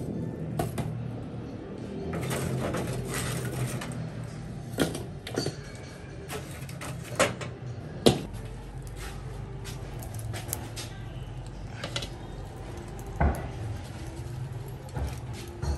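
Charcoal briquettes being set with chopsticks into a metal wok of burning coals: a series of separate clacks and knocks of charcoal against charcoal and the pan, the loudest about eight seconds in. Near the end, a wire grill rack is set down over the coals.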